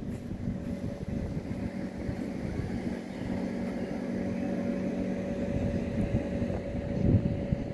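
Wind rumbling on the microphone over a steady low hum of a distant motor.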